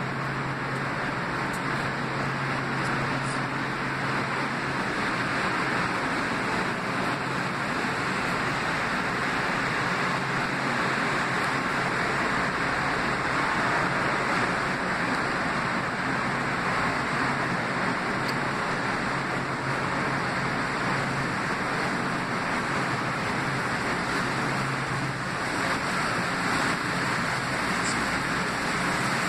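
Metro-North M8 electric multiple-unit train at the platform, giving a steady hum and rushing fan-like noise with no change in pitch.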